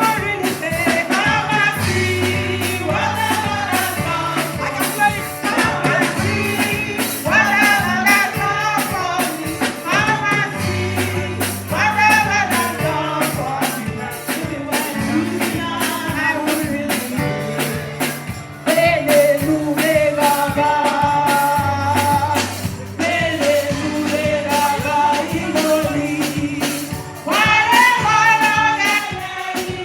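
Gospel praise music: voices singing a melody over a bass line that steps between notes, with a steady percussion beat.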